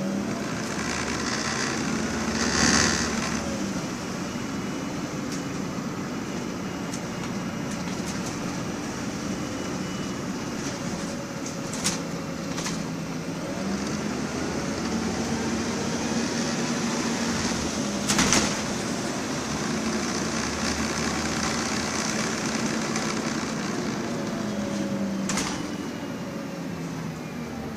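Inside a MAN 18.240 single-deck bus on the move: its six-cylinder diesel engine running, the engine note stepping down and up as the bus slows and picks up speed, with sharp rattles and knocks from the body, the loudest about 3 and 18 seconds in.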